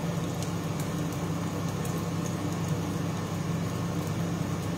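Steady low hum of a kitchen extractor hood fan, with a few faint clicks as tomatoes are cut with a small knife.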